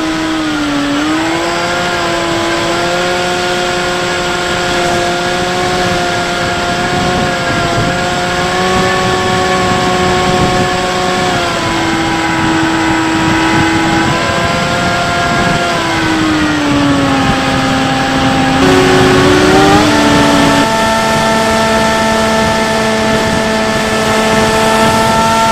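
Bixler 3 RC plane's electric motor and propeller whining in flight over a steady rush of air. The pitch dips and rises several times as the throttle is changed.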